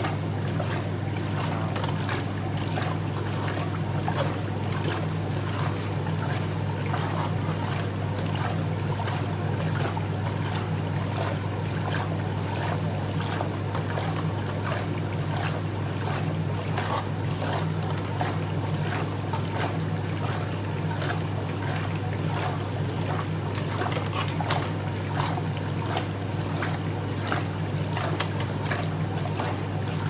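Hotpoint Supermatic De Luxe 9414W twin tub running its wash action: a steady low motor hum with the water sloshing and splashing in the wash tub.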